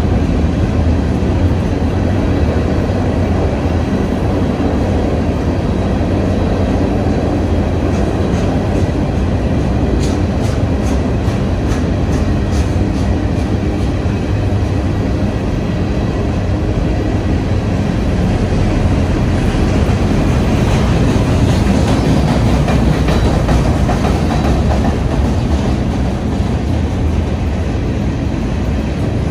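A freight train's empty open-top rock cars rolling past close by: a steady, heavy rumble of steel wheels on rail. Between about eight and thirteen seconds in, a run of sharp clicks rides over the rumble.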